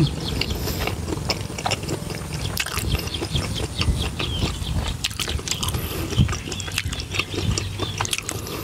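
Close-up chewing and wet mouth smacks of someone eating, with birds chirping in the background.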